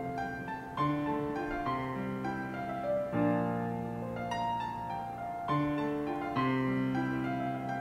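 Slow background piano music, with a new note or chord about every second.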